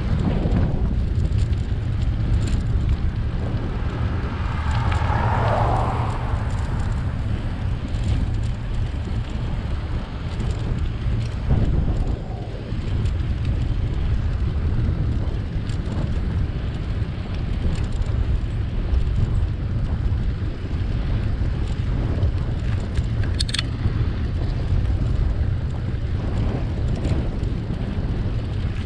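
Wind buffeting the microphone of a camera on a moving bicycle: a steady low rumble of wind and road noise. A brief swell comes about five seconds in, and a couple of sharp ticks come near the end.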